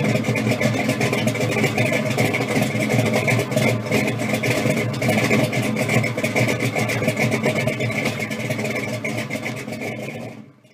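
Supercharged V8 of a blown 1966 Chevrolet Impala pro street car idling, a steady rough running that fades out near the end.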